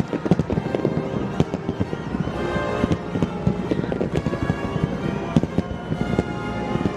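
Aerial fireworks going off in quick succession, many sharp bangs and crackles, with music playing underneath.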